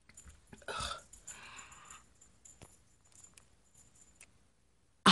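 Throat noises: a short throaty gulp about a second in, followed by a breathy rush of air, then a few faint clicks and a loud sudden sound at the very end.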